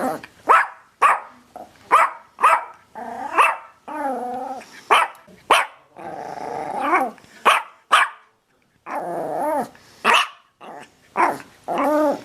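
A dog barking over and over: short, sharp barks roughly twice a second, mixed with longer drawn-out barks whose pitch wavers. There is a brief break a little past the middle.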